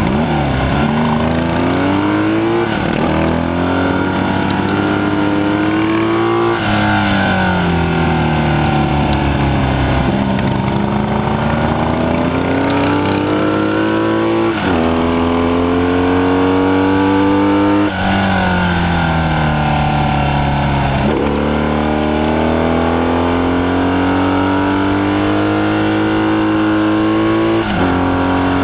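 Classic BMW racing motorcycle engine heard from on board, pulling hard through the gears: its pitch climbs under acceleration and drops sharply at each upshift, four times. About a third of the way in it falls away as the rider backs off, then builds again.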